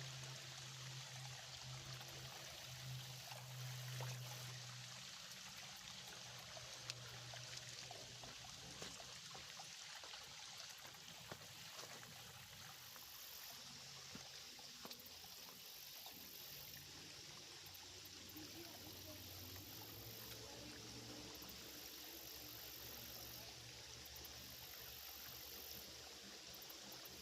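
Small shallow creek trickling steadily and faintly, with a low hum that is strongest in the first few seconds and a few soft clicks.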